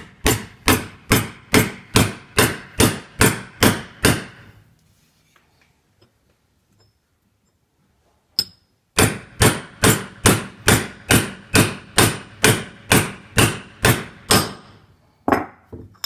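Hammer blows on a steel mandrel disc, driving a new outer bearing race into a Nuffield tractor's 5-stud front wheel hub. Steady strikes come about two a second, stop for about four seconds in the middle, then start again in a second run.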